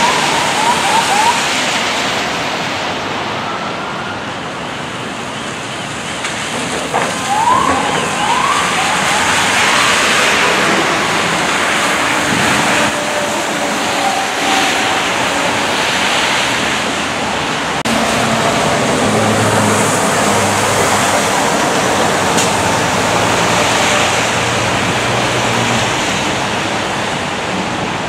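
Wet-road city traffic: tyres hissing on rain-soaked pavement as buses and cars pass. Short runs of a siren's rapid rising yelps are heard right at the start and again about seven to nine seconds in.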